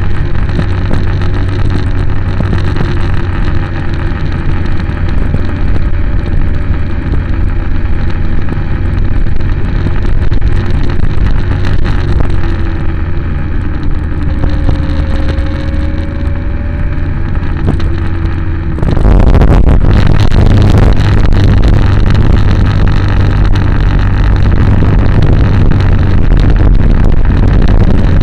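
A motor vehicle's engine running on the move, heard from on board, with wind and road noise. Its pitch drifts up and down with the throttle. About nineteen seconds in, the sound jumps suddenly louder and harsher and stays that way.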